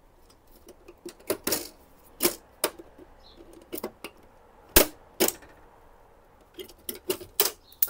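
Plastic clicks and snaps from an HP LaserJet Tank 1502's plastic covers and latches being worked with a flat screwdriver: about ten sharp, irregular clicks, the loudest a little under five seconds in.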